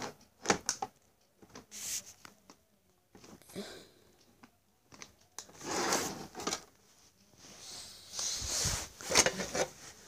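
Handling noise: irregular clicks and knocks with bursts of rustling, loudest a little past halfway and again near the end.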